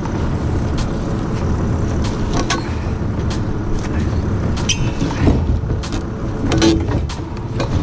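Forklift engine running steadily with a low rumble as the forklift inches forward carrying a load of logs on its forks. A few scattered sharp clicks and knocks sound over it.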